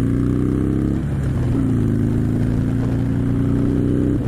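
Harley-Davidson Sportster Iron 883's air-cooled V-twin pulling hard under acceleration, its pitch climbing through one gear, dropping at an upshift about a second in, then climbing again until another upshift at the end.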